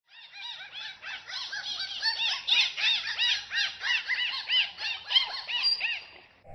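Dolphin whistling: a rapid, overlapping series of short chirps, each rising and then falling in pitch, several a second. It breaks off shortly before the end.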